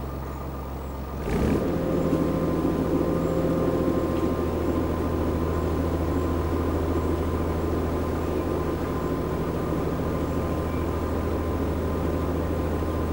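Narrowboat engine running steadily; about a second in it gets louder and stays louder.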